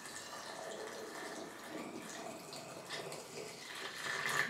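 Hot syrup pouring in a steady stream from a stainless steel cooking bowl through a plastic funnel into a bottle as the bottle fills, getting louder near the end.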